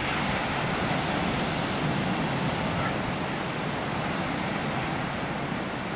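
Steady, even rush of ocean surf breaking, mixed with wind.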